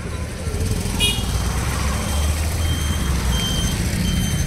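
Road traffic noise: a steady low rumble of passing vehicles, with a short horn toot about a second in and a few faint high beeps.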